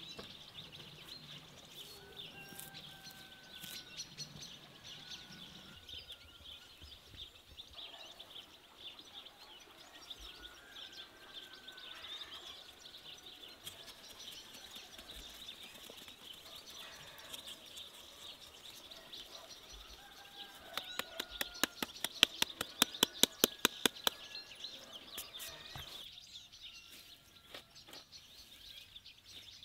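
Small birds chirping and singing over a quiet rural background. About two-thirds of the way through comes a quick run of sharp taps, about six a second for some three seconds, louder than the birdsong.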